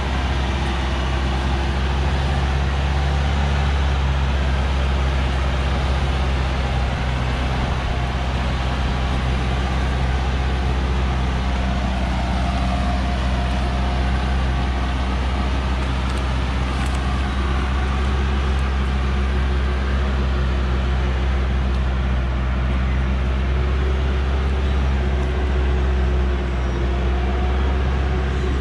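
Hoa Mai light truck's diesel engine running steadily under load as the log-laden truck drives up a dirt track, a continuous low drone.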